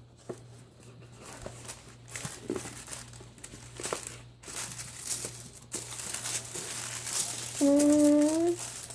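Packaging crinkling and rustling, with small clicks, as a small box is opened and its contents unwrapped by hand; the rustling grows busier partway through.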